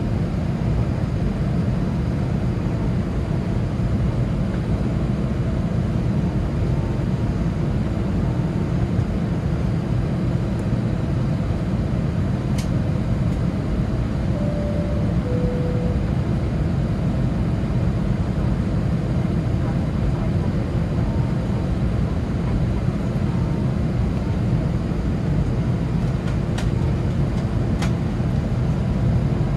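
Cabin noise of an Airbus A319 taxiing, its CFM56 turbofan engines running at low taxi thrust with a steady low rumble. About halfway through, a brief two-note tone sounds, the second note lower than the first.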